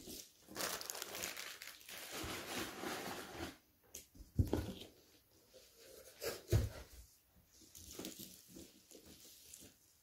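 Plastic packaging (air pillows and bubble wrap) crinkling and rustling as a boxed figure is pulled from its shipping carton, with two dull knocks in the middle.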